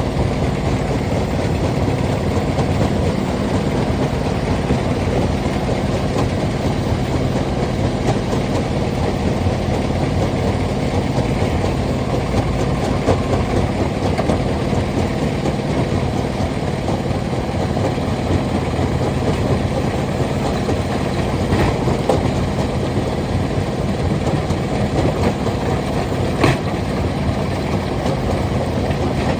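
Stone crusher plant machinery running with a steady, loud mechanical rumble and an engine hum beneath it. A couple of sharp knocks stand out, one about three-quarters of the way in and another near the end.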